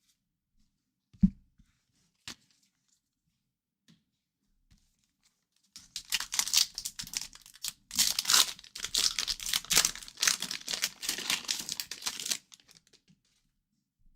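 A single thump about a second in, then a trading-card pack's wrapper being torn open and crinkled: dense crackling that starts about six seconds in and lasts about six seconds.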